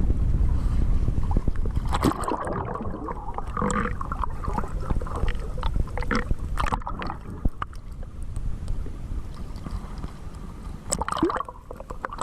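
Water splashing and gurgling in irregular bursts, after a low rumble of wind buffeting the microphone in the first couple of seconds.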